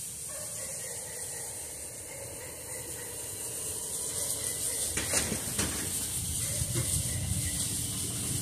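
2004 Suzuki Forenza driving slowly closer while towing a small utility trailer; its low engine-and-tyre rumble grows steadily louder, with a couple of sharp clicks about five seconds in. A steady high hiss runs underneath.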